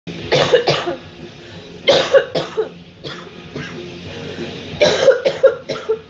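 A woman coughing hard in three fits of several harsh coughs each: two near the start, a cluster around two seconds in, and a longer run of about five coughs near the end.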